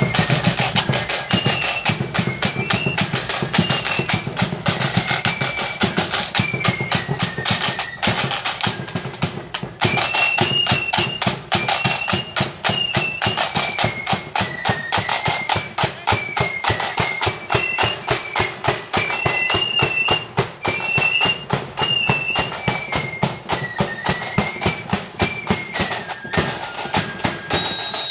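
Marching flute band playing a high unison tune over steady snare drum beats and rolls. The melody breaks off briefly about a third of the way through and then starts again while the drums keep going.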